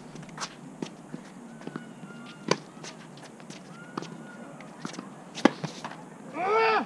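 Tennis rally on a hard court: sharp pops of the ball off racket strings and court, the loudest about two and a half and five and a half seconds in. Near the end, a short loud shout from a player.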